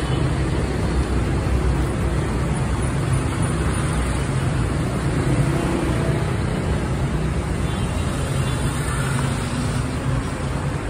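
Steady street traffic: cars passing at low speed, a continuous rumble of engines and tyres.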